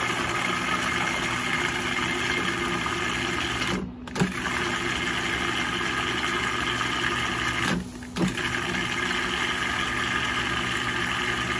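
Countertop food processor running, blending thick peanut sauce with added lemon juice and water to thin it. The motor hum is steady but stops for a moment twice, about four and eight seconds in, then starts again.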